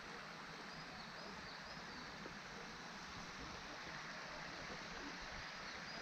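Faint steady rushing of a forest stream, with a few faint high bird chirps.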